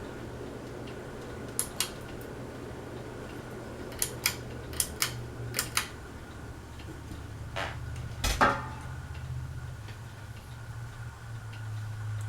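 Westinghouse Apollo Elite ceiling fan running with a steady low hum. Over it come sharp clicks, mostly in pairs, and a heavier click with a low thump about eight seconds in.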